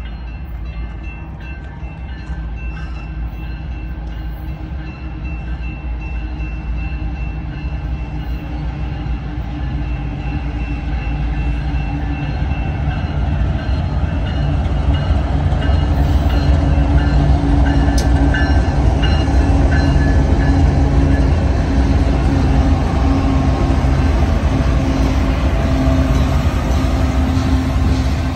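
BNSF diesel-electric freight locomotives approaching and drawing alongside, their engine rumble growing steadily louder for about the first fifteen seconds and then holding loud as the lead units come up close.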